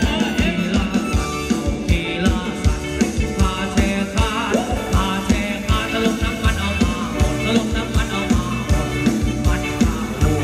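A live band playing upbeat Thai ramwong dance music, with a fast, steady drum-kit beat and a voice singing over it.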